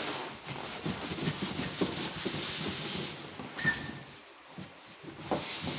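Corrugated cardboard carton scraping and rubbing as it is slid up off a washing machine, continuous rustling friction with small knocks and a brief squeak about halfway through. The scraping dies down near the end, followed by a few more knocks.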